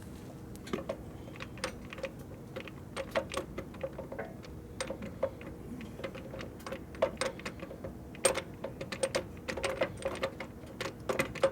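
Irregular light clicks and clinks of metal parts and hand tools being worked on a motorcycle transmission. They come faster and louder in the second half, over a faint steady hum.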